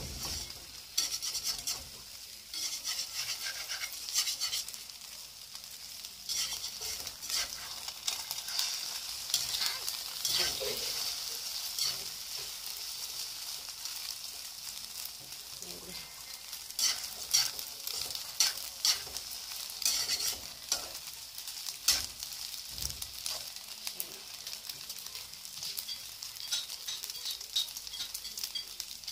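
Eggs frying in hot oil in a wok, sizzling steadily, while a metal slotted spatula scrapes and breaks them up against the pan. The scrapes and knocks come in bunches, loudest past the middle.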